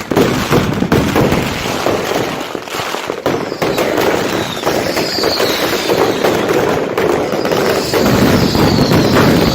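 Fireworks going off in a rapid, continuous barrage of cracks and bangs. A few short falling whistles join in from about halfway.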